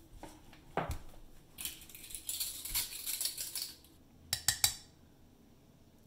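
A measuring spoon scraping and scooping through flour in a plastic tub for a couple of seconds, then three or four sharp clinks of the spoon against the ceramic ramekin as the flour is added.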